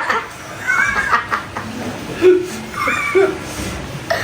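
People chuckling and laughing, a few short laughs with brief vocal sounds between them.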